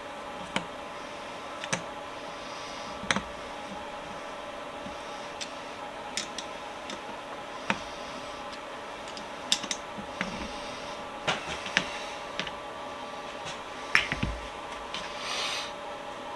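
Scattered light clicks and taps of tools and metal vise parts being handled on a workbench, over a steady hum. The loudest knock comes near the end, followed by a short hiss.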